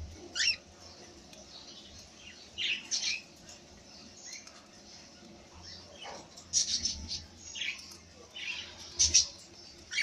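Cockatiels bathing in a shallow plastic tub of water: short bursts of splashing and wing-fluttering, about six over the stretch, with brief squawks among them.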